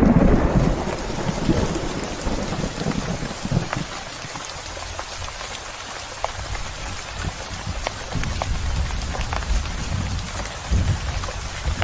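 Steady rain with scattered louder drop hits, and a low rumble of thunder at the start that fades over the first few seconds; further low rumbles come back near the end.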